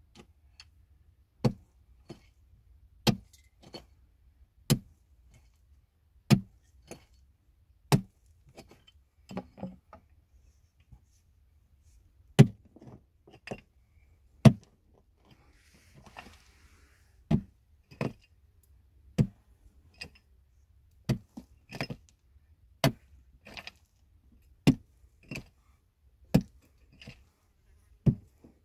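A hand tool striking again and again at a steady working pace, about one blow every second and a half to two seconds, some followed by a fainter knock or scrape. The blows pause briefly about halfway through.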